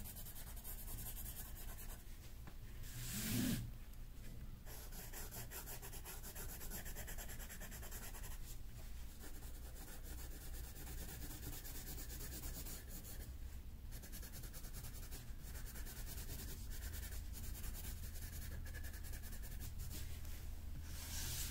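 Coloring on paper: quick, steady back-and-forth strokes scratching and rubbing across the sheet as a drawing is shaded. A brief louder sound about three seconds in.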